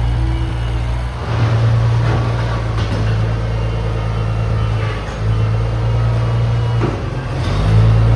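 Old tractor's gasoline engine running steadily under load, with a deep, even hum that swells in loudness a few times.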